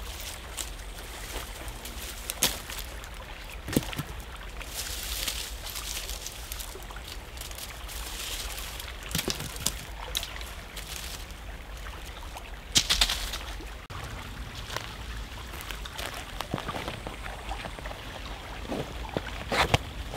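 Small woodland stream flowing steadily, with scattered rustles and cracks of dry leaves and twigs being handled on the forest floor; the loudest crackles come about 13 seconds in.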